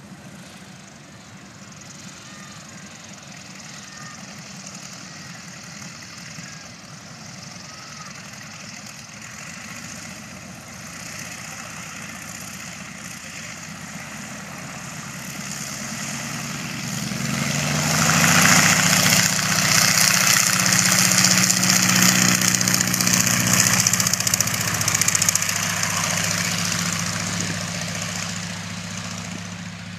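Biplane's piston engine and propeller running at takeoff power: a steady drone that grows louder, loudest from about 18 to 26 seconds in with a rush of propeller noise, then fades away as the plane climbs off.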